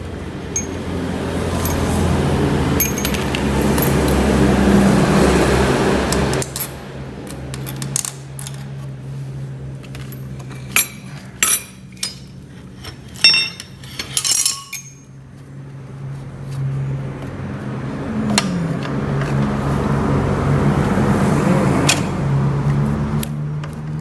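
Metal engine parts and hand tools clinking and clattering as a motorcycle engine is taken apart, with a run of sharp clinks in the middle. A steady low mechanical hum swells before and after them, dropping off suddenly each time.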